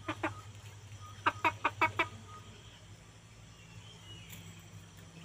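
Chicken clucking: two short clucks, then a quick run of five about a second later.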